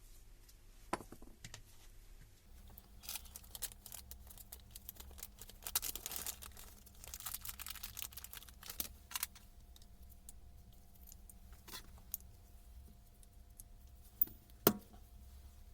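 Quiet handling sounds: scattered small clicks and rustling, with a sharp knock about a second in and a louder one near the end, over a faint steady hum.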